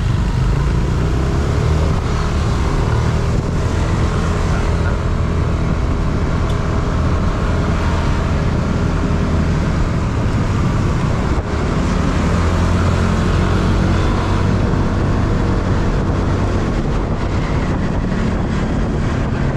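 Motor scooter running steadily while riding in city traffic, its engine hum mixed with road and wind noise and the surrounding cars.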